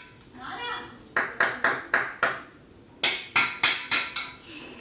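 Quick runs of sharp taps with a short ring, four or five at a time at about four a second, in two groups about a second apart.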